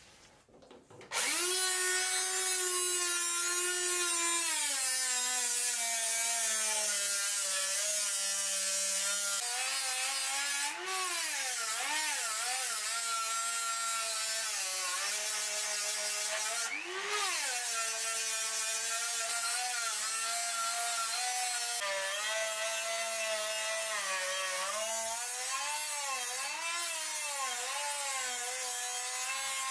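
Handheld rotary tool starting up about a second in, its small abrasive wheel grinding the steel of a cleaver blade and throwing sparks. The motor's high whine falls and wavers as it grinds, jumping up briefly twice, over a steady hiss of abrasive on metal.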